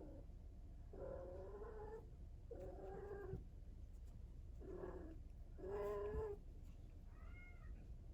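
Young female cat in heat caterwauling: a series of about six drawn-out yowls, each up to about a second long, with short gaps between them. The call near the end is higher and rises then falls in pitch. These are the mating calls of a kitten in her first heat.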